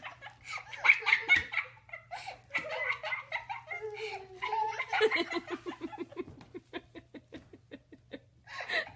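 A person laughing and giggling, breaking into a long run of quick, even laughs in the second half, over a faint steady low hum.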